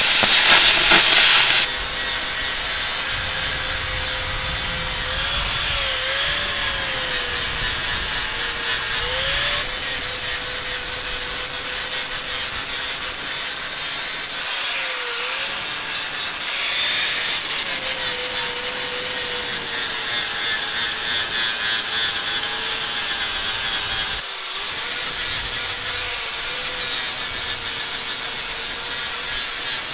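An oxy-acetylene cutting torch hisses for about the first second and a half, then an electric angle grinder runs steadily, grinding the edge of a thick steel plate, its whine wavering as it bears on the steel. The grinding dips briefly about fifteen and again about twenty-four seconds in.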